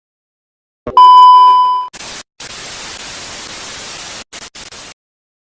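An electronic sound effect: a click, then a loud steady beep lasting about a second, then hissing static cut by brief dropouts for about three seconds, like a test tone giving way to TV static.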